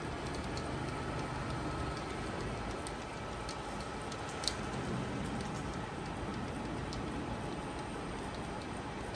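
Jungner US-450 tool and cutter grinder running with a steady, even noise as its wheel head is traversed vertically, with a few faint ticks and one sharper click about four and a half seconds in.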